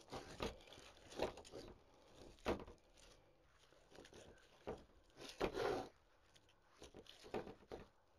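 Faint, irregular rustling and crinkling as fern sprigs are pushed into a grapevine wreath and its styrofoam, with about half a dozen short bursts scattered through.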